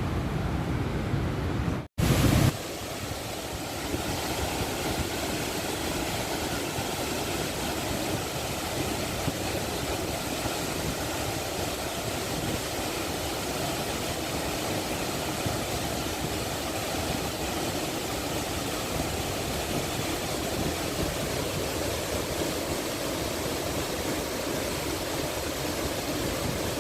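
Rushing water of a waterfall, a steady even roar, broken by a short cut about two seconds in.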